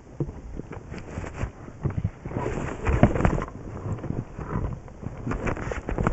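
Hands working snowboard bindings and straps: irregular clicks and knocks with rustling of jacket fabric, growing louder and busier for about a second near the middle.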